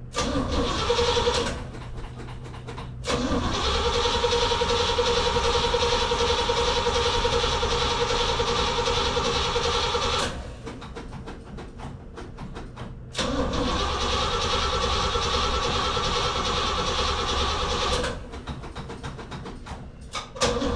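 Starter cranking the 1968 Pontiac GTO's V8 in four long bursts with short pauses between, the engine not catching: a cold engine with no choke after six months of sitting.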